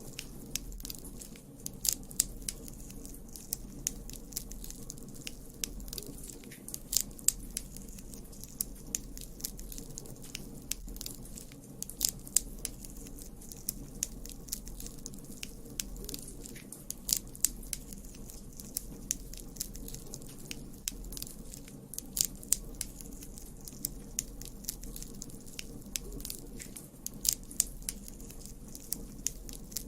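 Campfire burning: wood crackling and popping at irregular intervals over a steady low rumble of the flames.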